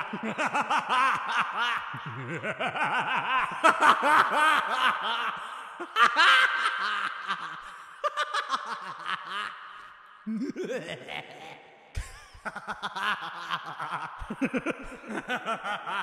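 A man's manic, creepy Joker-style laughter: long runs of fast, pulsing cackles, easing into a quieter lull about two-thirds of the way through before picking up again.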